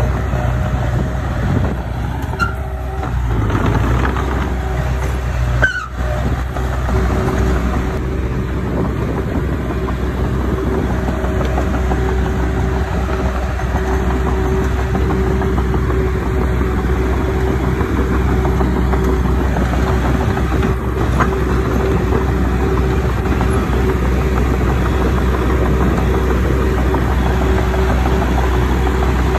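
Diesel engine of earthmoving machinery running steadily, a deep hum with a constant whine above it and one brief dropout about six seconds in.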